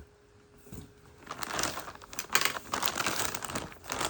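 Plastic packaging crinkling and rustling as a parcel is opened and handled, starting about a second in.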